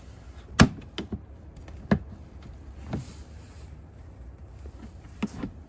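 Several short, sharp clicks and knocks at uneven gaps, the loudest about half a second in, as the locking tabs of an O-Cedar EasyWring spin mop bucket's lock ring are pushed and its parts handled.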